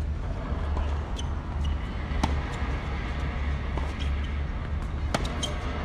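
Tennis ball struck by rackets during a rally: sharp pops, the loudest about two seconds in and again about five seconds in, with fainter clicks between. A steady low rumble runs underneath.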